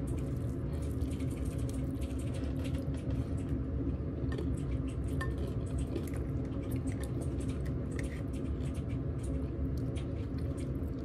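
Cooked crab in adobo sauce handled and pulled apart by hand: many small shell cracks, clicks and wet squishes, with light clinks against the bowl. A steady low hum lies underneath.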